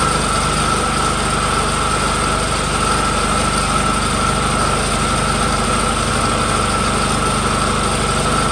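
Dredge pump's engine running steadily at an even speed, with a steady high whine over it.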